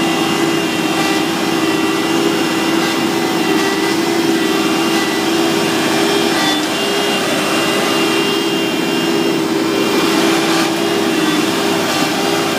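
Asphalt paver running steadily close by while it lays hot blacktop: an even engine noise with a constant hum.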